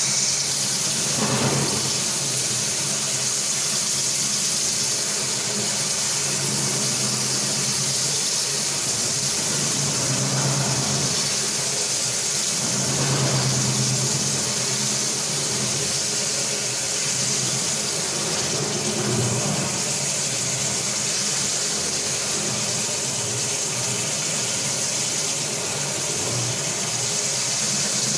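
Marble floor grinding and polishing machine running steadily on wet stone: a steady motor hum under a high hiss, swelling briefly now and then.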